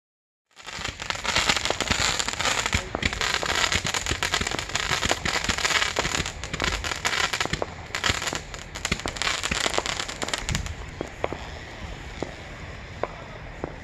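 Fireworks crackling: a dense, continuous crackle of many sharp pops from white crackling stars that starts abruptly about half a second in, then thins to scattered pops after about ten seconds.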